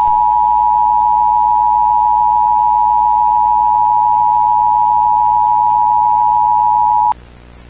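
Emergency Alert System attention signal: two steady tones just under 1 kHz sounding together, loud and unchanging, cutting off suddenly about seven seconds in. A faint low hum follows.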